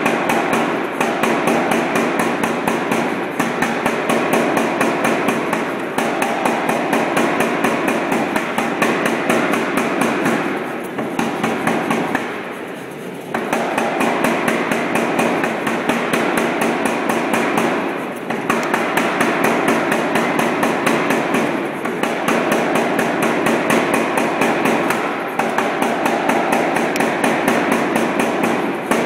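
Anyang 55 lb air power hammer striking a rapid, even train of blows with flat dies on red-hot 1.5-inch square steel bar, drawing it out to a taper. The hammering stops briefly several times, longest about twelve seconds in, as the bar is repositioned.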